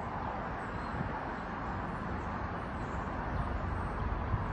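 Steady outdoor urban background noise: an even hum of distant traffic with a low rumble underneath.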